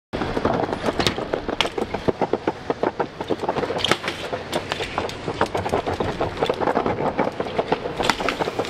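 BMX bike ridden on stone paving and a stone ledge: a dense, irregular clatter of clicks and rattles from the tyres, chain and frame, with several sharper knocks as the wheels hit the ledge.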